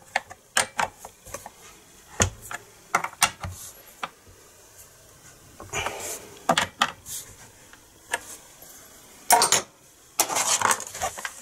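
Scattered metallic clinks, clicks and knocks of hand tools and chainsaw parts being handled, with louder clusters about halfway through and near the end.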